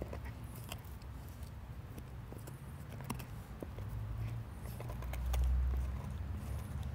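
A husky gnawing a large femur bone, its teeth scraping and cracking on the bone in scattered sharp clicks. A low rumble runs underneath and swells briefly about five seconds in.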